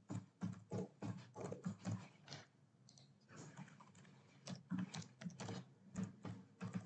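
Faint keystrokes on a computer keyboard, a quick run of taps with a short pause about three seconds in.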